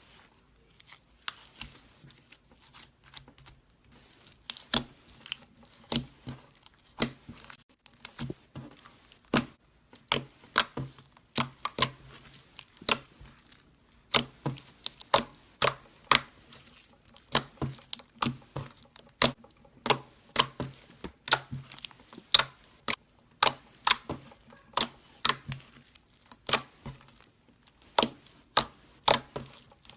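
Slime being squeezed and poked by hand, giving a long run of sharp clicking pops as air pockets burst, irregular at roughly one to three a second.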